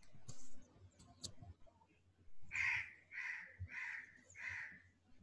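Crow cawing: four harsh calls in quick, even succession, after a brief hiss near the start.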